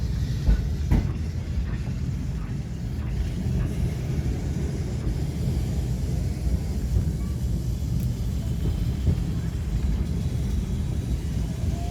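Blackpool English Electric boat tram running along the track: a steady low rumble of wheels and running gear, with a few light knocks in the first three seconds.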